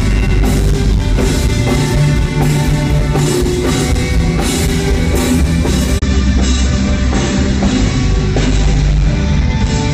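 Live rock band playing at a soundcheck: a drum kit keeps a steady beat of about two hits a second under electric guitar.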